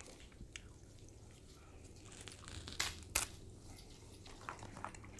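Eating sounds close to the microphone: grilled king crab legs being cracked and bitten, with two sharp cracks about half a second apart near the middle and a few softer clicks toward the end.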